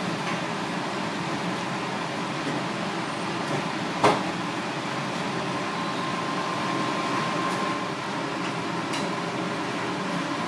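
Steady mechanical hum, with one sharp knock about four seconds in and a faint steady tone from about six to eight seconds.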